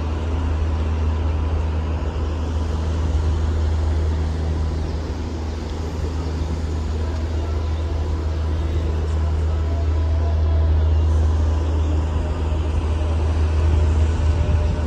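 Steady low rumble of outdoor city ambience, heaviest in the bass.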